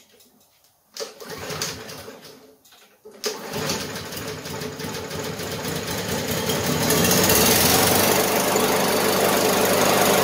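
Push lawn mower's small four-stroke engine being pull-started: the first pull about a second in cranks without catching, and the second pull about three seconds in catches. The engine then runs, building up over a few seconds to a steady, even run. It is an easy first start after winter storage, which the owner puts down to fuel stabilizer in the gas.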